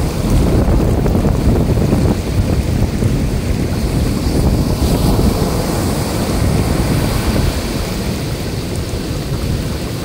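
Heavy surf: large waves breaking and foaming up a sandy beach in a steady, loud wash, with wind buffeting the microphone. It eases a little near the end.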